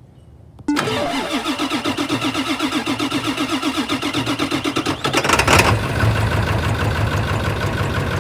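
The 7.3 L Power Stroke V8 turbodiesel of a 2000 Ford F-350 cranking on the starter in a rhythmic chug for about four seconds. It catches with a burst about five seconds in and settles into a steady diesel idle.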